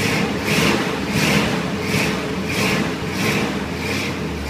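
The 1986 Chevy K5 Blazer's 350 V8, with its Quadrajet carburetor, running and rising and falling in quick repeated surges, about three every two seconds. It is being kept alive by pumping the accelerator so the accelerator pump squirts fuel in, because the carburetor is half plugged up.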